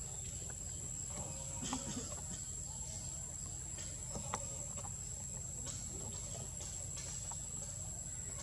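Forest ambience: a steady, high-pitched insect drone, with scattered faint clicks and rustles.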